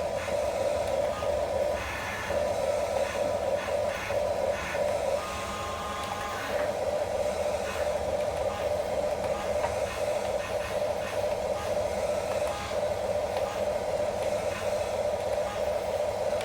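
Small electric motors and plastic gearboxes of a toy remote-control construction vehicle running steadily. The pitch and tone shift for about a second and a half around the middle, as a different function is driven.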